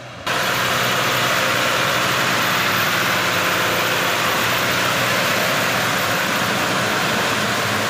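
A 105-horsepower rubber-tracked tractor working close by in a flooded rice paddy: its engine runs steadily under load while the track churns and splashes through wet mud. The sound starts suddenly a moment in and stays even.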